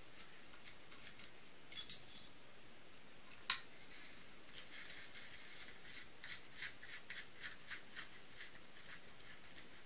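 Light metal clicks of a 2.5 mm ball-end hex wrench turning out a nitro buggy's motor mounting screws: one sharper click about three and a half seconds in, then a run of faint ticks about two a second.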